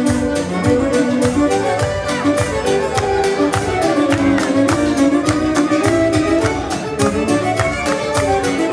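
Live wedding band playing an instrumental dance passage led by violin over a quick, steady beat.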